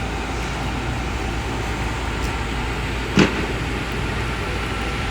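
Steady motor-vehicle and road-traffic noise, with one short, loud knock about three seconds in.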